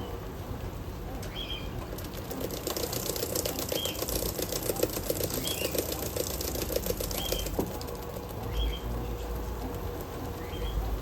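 Electrolux LM08A top-loading washing machine agitating a load of towels with its dual-action agitator: water and cloth churning, with a stretch of rapid crackling from about two seconds in to past the middle. A short high chirp repeats about every second and a half.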